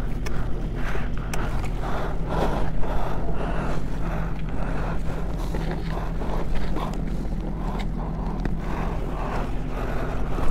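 A steady low machine hum with irregular rustling and light knocks over it.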